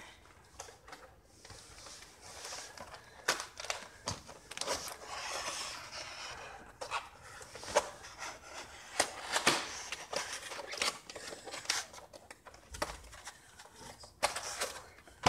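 Cardboard packaging being handled and opened: irregular rustling, scraping and sharp taps of cardboard boxes and flaps.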